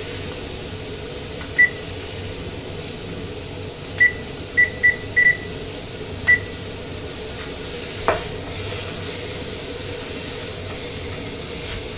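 Seven short electronic beeps at one pitch as buttons on a kitchen appliance keypad are pressed: one about a second and a half in, a quick run of five around four to five seconds, and one more at about six seconds. Under them is the steady hiss of venison searing in a hot pan, with a single click a little after eight seconds.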